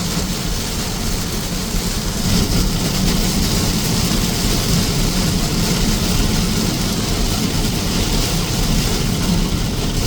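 Steady rumble of a moving vehicle, engine and road noise, growing a little louder about two seconds in.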